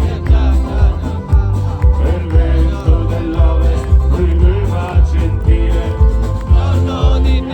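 Folk-rock band music with a steady drum-and-bass beat and a wavering lead melody, in an instrumental passage of the song.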